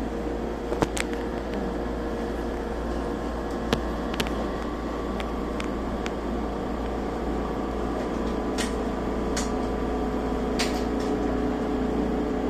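Steady hum of a stationary electric train's carriage equipment and ventilation, with a few held tones and occasional light clicks.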